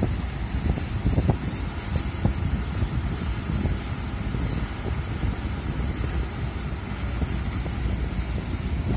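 Kobelco SK200 crawler excavator's diesel engine running as the machine works, with strong wind buffeting the microphone as an uneven low rumble.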